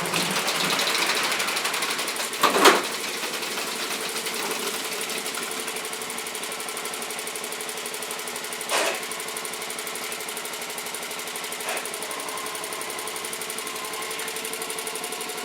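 Sears Suburban garden tractor's small engine running steadily, with a loud clunk about two and a half seconds in and a lighter one near nine seconds.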